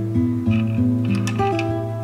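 Background music: an acoustic guitar picking a melody of short held notes over a steady low bass note.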